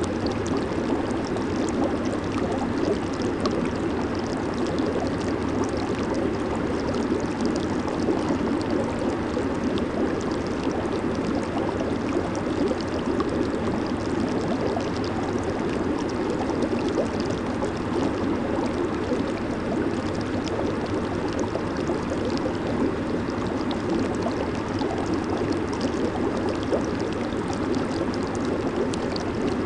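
Jacuzzi water churning and bubbling steadily from its jets.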